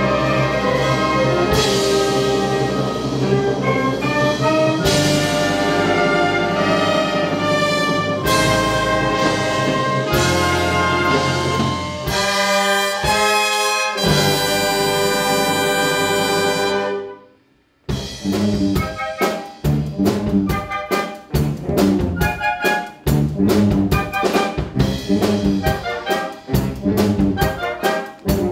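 Concert wind band playing a medley of Korean popular songs: full sustained chords led by the brass, breaking off for a moment about two-thirds of the way through, then a rhythmic passage of short, detached notes with a steady beat.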